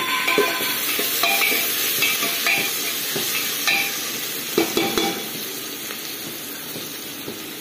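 A metal spoon stirring and scraping onions and chopped tomato frying in oil in a pressure-cooker pot, over a steady sizzle. The spoon scrapes and clinks against the pot's metal sides, with a few sharper clinks a little past the middle.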